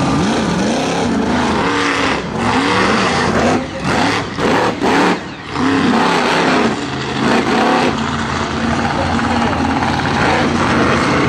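Monster truck engine revving hard in repeated rises and falls as the truck climbs over and crushes a row of junk cars. There are a few brief throttle lifts about four to five seconds in.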